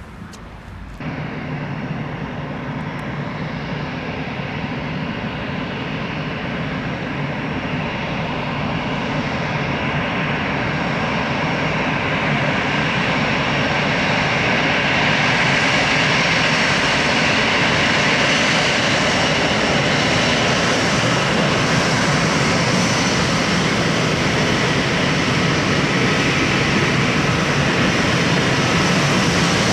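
Jet engines of an Airbus A319 at takeoff power, jumping up about a second in, then growing steadily louder for around fifteen seconds and holding as a loud, steady roar.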